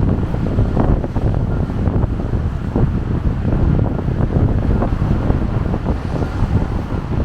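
Strong wind buffeting a small camera's built-in microphone, a loud, constant low rumble that swells and drops with the gusts.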